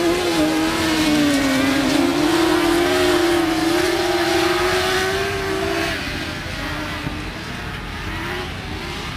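F600 autograss racing cars with high-revving 600cc motorcycle engines, racing on a grass track. Their engine note wavers up and down with the throttle and gear changes, and grows quieter from about six seconds in as the cars pull away.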